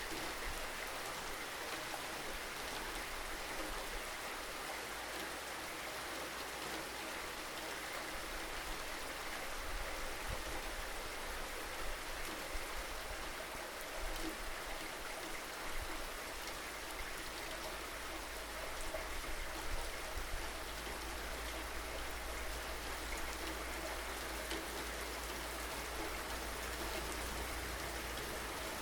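Steady rain falling, with scattered louder drops and a low rumble underneath.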